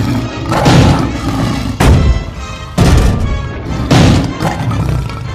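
Intro music built on heavy, deep booming hits, four of them about a second apart, each ringing away before the next.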